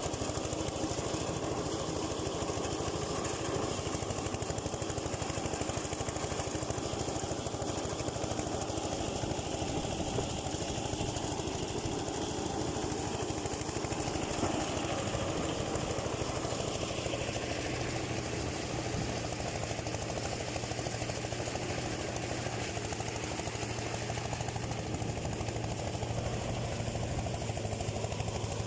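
Engine-driven rice thresher running steadily: a fast, even engine pulse under a broad mechanical whir, its low hum growing stronger after about 17 seconds.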